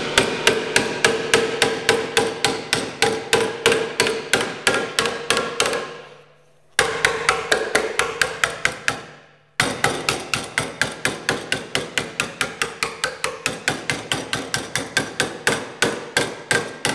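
Nylon mallet striking a sheet-metal panel clamped in a wooden forming buck, in a fast even rhythm of about four or five blows a second, with a ringing note from the panel. The hammering stops briefly twice partway through. The blows knock the panel down and stretch it into the buck's curved corner.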